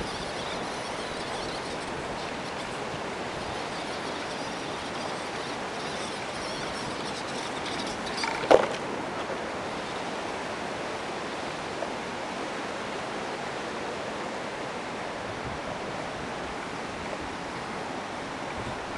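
Steady rushing wind noise on the microphone, with one short, sharp knock about eight and a half seconds in.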